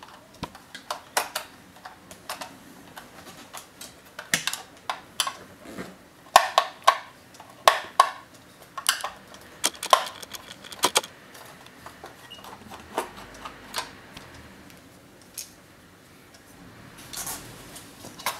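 Screwdriver undoing the screws that hold the mechanism in an Ajanta plastic cuckoo clock: irregular clicks and scrapes of the metal tip on the screws and plastic case. They come thickest in the middle and thin out in the last few seconds.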